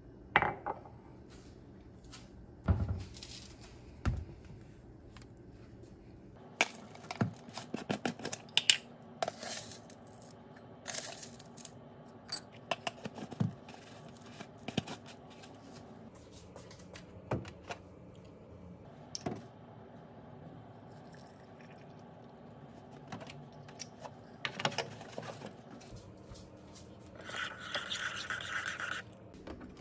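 Ceramic mug and metal spoon on a tiled kitchen counter: scattered clinks, taps and scrapes as malted-milk drink powder is spooned from a jar into the mug, then about two seconds of continuous scraping near the end.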